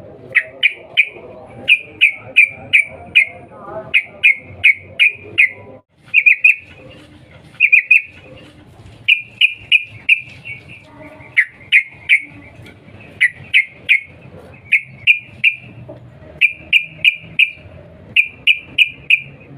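Yellow-vented bulbul giving loud, rapid 'cuk cuk' calls: quick clusters of three to five sharp chipping notes, the clusters repeating about once a second with a brief pause about six seconds in.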